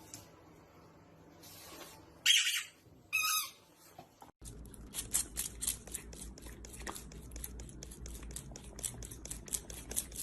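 Two short, loud, high-pitched animal squawks about a second apart, then a fast run of clicks, several a second, over a low steady hum.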